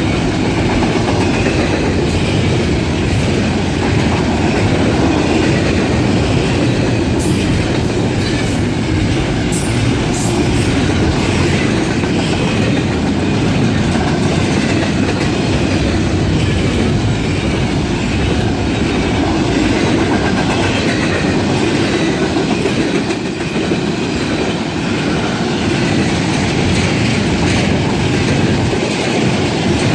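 A train's cars rolling past steadily, their steel wheels running over the rails.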